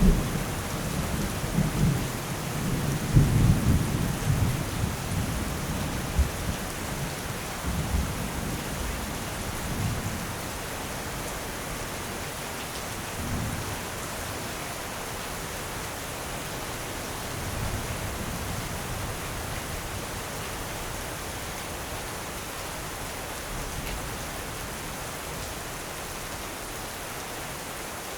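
Steady heavy rain falling, with a roll of thunder rumbling low in the first few seconds, loudest about three seconds in, and dying away over the next several seconds. A fainter rumble comes back briefly later on.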